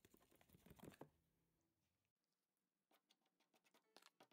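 Very faint, irregular soft taps of a Lego brick dabbing acrylic paint onto a canvas, pausing briefly in the middle.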